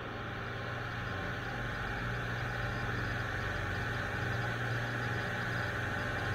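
Boat engine running steadily under way, a low drone with the hiss of water and spray rushing along the hull.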